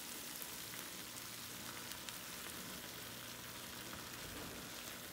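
Faint, steady sizzle of spaghetti in a creamy pecorino-and-butter sauce bubbling in a frying pan, while the pasta is turned with metal tongs, with a few faint ticks. The sauce has emulsified and turned creamy.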